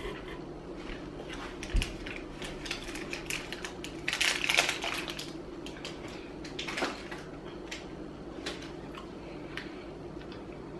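Eating a foil-wrapped chocolate candy: chewing and the crinkle of the foil wrapper in the hand make scattered small clicks and crackles, with a denser burst about four seconds in.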